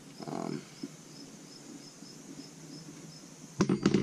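A cricket chirping steadily, a short high pulse repeating about three times a second. Near the end come a few sharp clicks and knocks.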